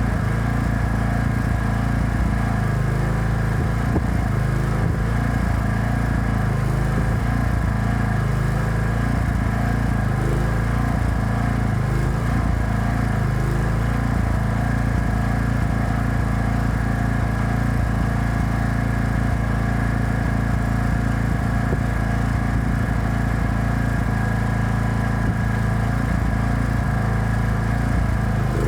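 Small portable generator engine running steadily at constant speed while powering an arc welder.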